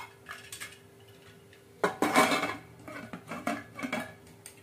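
Metal pressure cooker lid clattering and knocking against the cooker body as it is fitted on. There is one loud clatter about two seconds in, then several lighter knocks.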